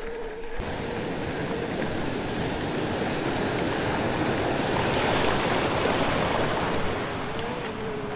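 Electric mountain bike climbing: a steady whine from the e-bike's drive motor under a continuous rushing noise.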